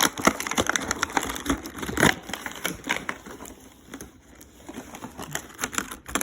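Toy packaging being handled: irregular crackling and clicking of plastic and cardboard as the action figure is worked out of its box, busiest in the first half.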